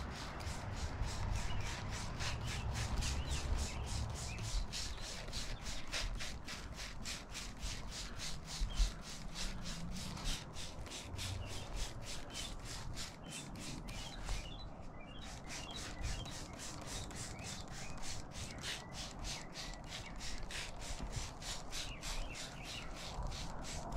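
Hand spray bottle squirting over and over in a steady run of short sprays, several a second, with a brief pause about halfway, as loose ground cover is wetted down with a thinned glue mix.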